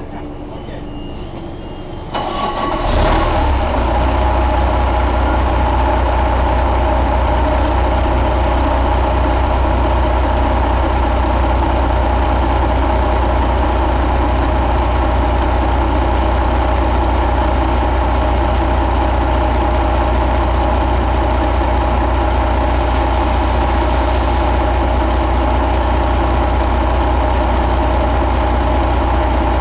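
1998 Detroit Diesel Series 60 11.1-litre inline-six turbo diesel starting about two seconds in, then settling into a steady idle.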